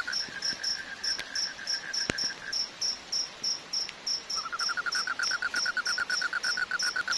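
Insects chirping: a high chirp repeating evenly about four times a second, with a lower pulsing trill that drops out for a couple of seconds midway and then resumes. There is one faint click.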